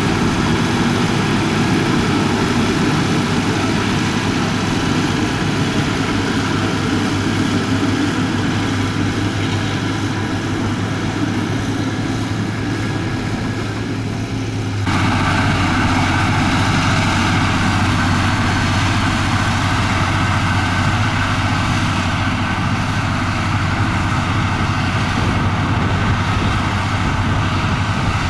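Komatsu bulldozer's diesel engine running steadily. About halfway through, the tone changes abruptly to a brighter, harsher sound that then holds steady.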